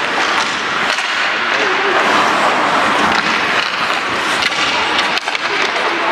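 Ice hockey play on a rink: skates scraping and carving on the ice in a steady hiss, with a few sharp knocks of sticks and puck about four and a half and five seconds in, and voices calling out faintly.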